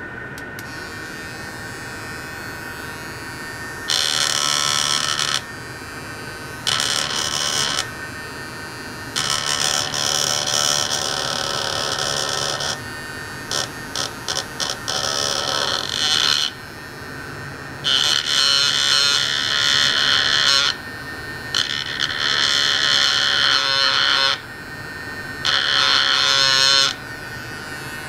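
Piezoelectric ultrasonic probe driven by a function generator, giving a harsh high-pitched buzz in bursts that switch abruptly on and off, each lasting one to three seconds, with a quick stutter of short pulses near the middle. A steady electrical hum runs underneath.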